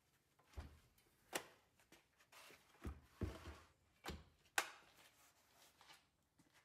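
Steel bumper brackets handled and set down on a wooden workbench: a series of separate knocks and clunks, some dull and deep, the sharpest about a second and a half in and again about four and a half seconds in.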